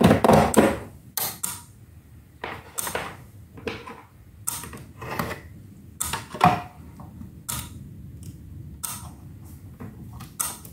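Irregular clicks, taps and clatter of metal parts and wiring being handled while a load of 12 V car bulbs is hooked up to a homemade switching power supply, with a louder clatter at the start, over a steady low hum.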